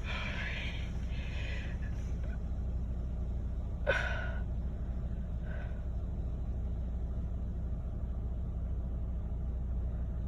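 Steady low rumble inside a car, with a brief breathy gasp about four seconds in.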